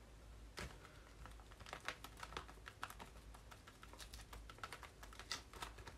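Sponge dabbing watery paint onto a paper card: faint, irregular quick taps and pats.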